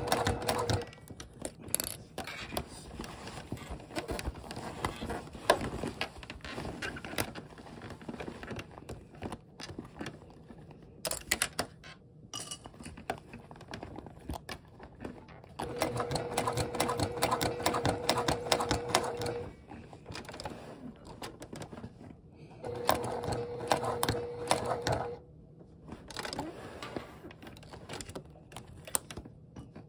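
Sewing machine stitching through thick vinyl, lining and interfacing in short runs: a run ends about a second in, two more runs of a few seconds each follow in the second half, and it starts again at the very end. Quieter clicking fills the pauses between runs.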